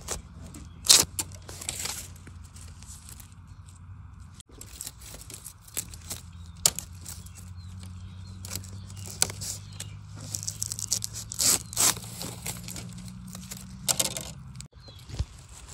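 A large knife cutting and prying a young bamboo shoot out at its base among dry leaf litter: a run of sharp blade clicks and scrapes, loudest about a second in and bunched again later, over a low steady hum.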